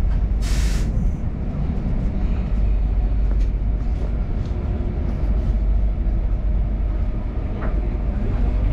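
Passenger train in motion, heard from inside the carriage: a steady low rumble. About half a second in there is a short, loud hiss, and a few faint clicks follow later.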